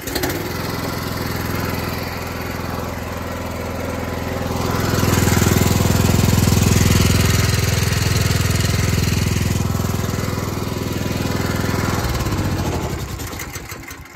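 Small gas engine of a direct-drive pressure washer catching on a recoil pull and running at part throttle, getting louder about four and a half seconds in. It is shut off about twelve seconds in and spins down. The pump is running dry, because the water supply was never turned on.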